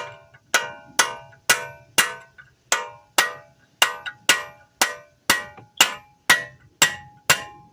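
Hammer blows on the end of a BMW 528xi front CV axle, about fifteen evenly paced strikes roughly two a second, each ringing metallically, knocking the axle's splined shaft loose to drive it out of the wheel hub.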